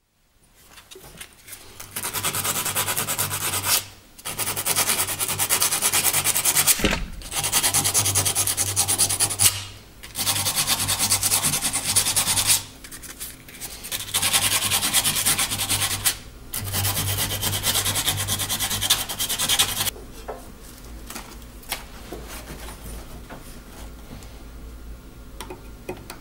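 Sandpaper rubbed briskly back and forth by hand in about six spells of a few seconds each with short pauses between, stopping about twenty seconds in.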